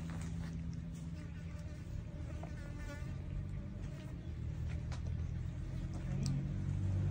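A buzzing insect: a steady low drone that wavers and shifts in pitch a little after six seconds in, with faint soft clicks from cats eating out of plastic bowls.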